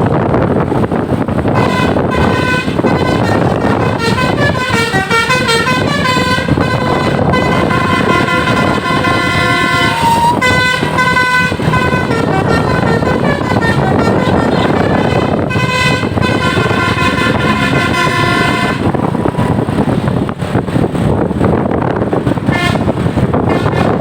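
A tour bus's multi-tone 'basuri' telolet air horn plays a warbling, shifting tune over steady engine and road noise. It starts about two seconds in, stops about five seconds before the end, then sounds briefly again.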